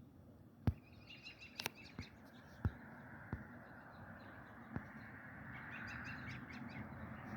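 Small birds chirping in two rapid twittering bursts, about a second in and again near the end. Several sharp clicks or knocks fall in between, and a hiss of noise slowly grows louder.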